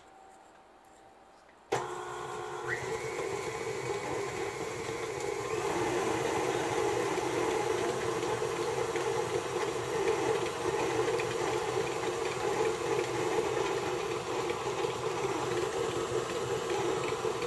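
KitchenAid stand mixer switched on nearly two seconds in, then running steadily with its flat beater creaming butter and sugar in a steel bowl; the motor gets a little louder a few seconds later.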